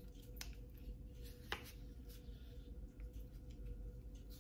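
Faint handling of a plastic Osmo Mobile smartphone gimbal: light rubbing and small clicks as its arm is turned and folded in the hands, with sharper clicks about half a second and a second and a half in.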